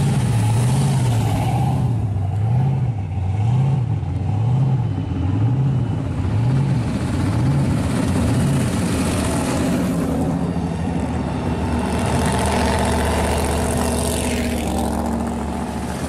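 Supercharged engine of a 1967 Ford F100 pro-street pickup and other hot rods running at low speed as they cruise past. For the first half the engine note swings up and down in pitch about once a second, then it settles into a steadier low running sound.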